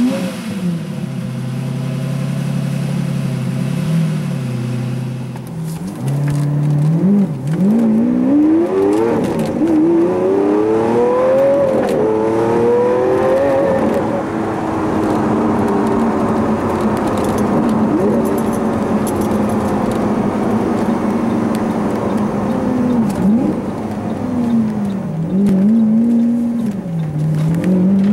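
Lamborghini Aventador LP700-4's V12 engine heard from inside the cabin. It idles, then pulls away, climbing in pitch through several upshifts, and settles to a steady cruise. Near the end it eases off and picks up again.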